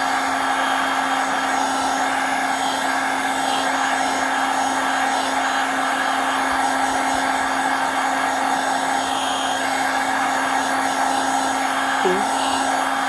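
Hot-air blower running steadily with a constant hum, heating a phone's screen to soften the glue holding it.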